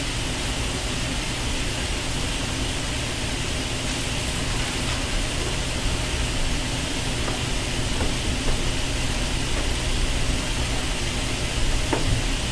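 Steady hiss with a low hum: background room noise, with a faint click near the end.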